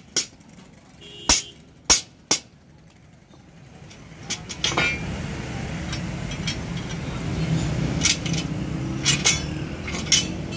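Steel leaf-spring leaves clinking and knocking against each other and against metal as they are handled and stacked: several sharp metallic strikes early on, then scattered clinks. A steady low vehicle rumble comes in about four seconds in.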